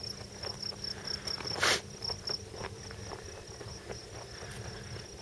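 Footsteps walking over short grass and dirt, with one brief louder scuffing rustle about a second and a half in. A high, pulsing chirp repeats about five times a second through the first half, like an insect calling in the grass.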